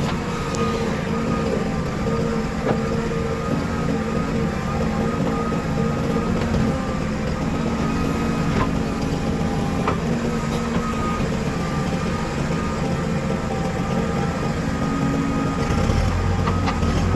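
Diesel engine of a JCB 3DX backhoe loader running steadily. Near the end its low note grows louder.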